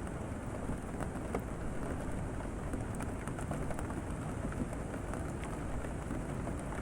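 Steady rain falling, with scattered individual drops ticking against a surface.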